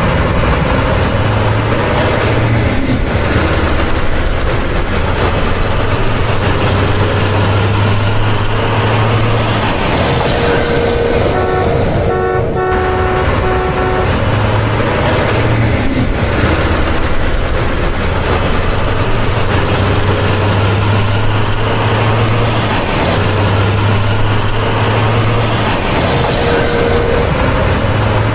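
Heavy truck engine running steadily, with a few short horn toots near the middle. A sound effect laid over the footage.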